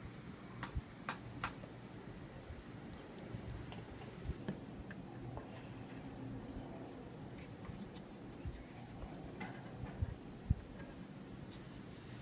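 Scattered light clicks and taps of a small plastic computer fan being handled and set on a circuit board's heat sink, over a faint low steady hum.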